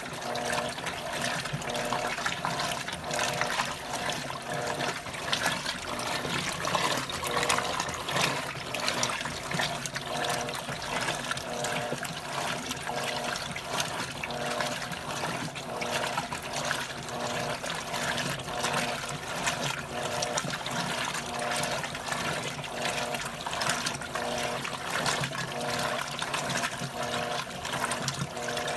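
Electrolux top-loading washing machine agitating on its heavy-soil turbo programme: water sloshing steadily while the motor hum starts and stops in a regular rhythm as the agitator swings back and forth.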